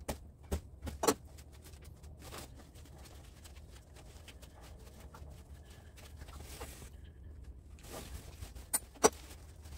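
Scattered sharp clicks and knocks of hands working copper wire with a knife at a steel bench vise, over a low steady hum. The loudest knocks come about a second in and near the end.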